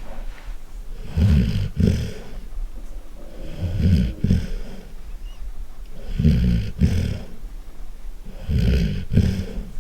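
Golden retriever snoring loudly: four deep snores about two and a half seconds apart.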